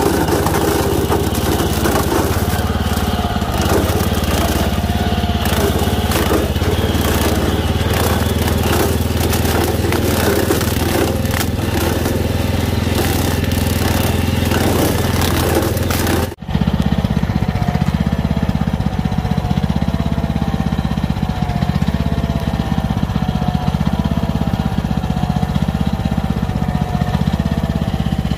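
Small engine of a walk-behind cultivator running steadily under load, driving an attached brush-cutter blade that cuts corn stalks, with a crackle of stalks being chopped. About sixteen seconds in the sound breaks off for an instant and resumes with the engine running on and less crackle.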